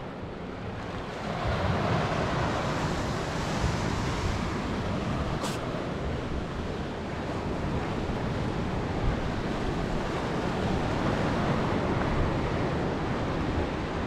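Sea surf washing steadily over a rocky shore, with wind buffeting the microphone; the noise grows louder about a second and a half in.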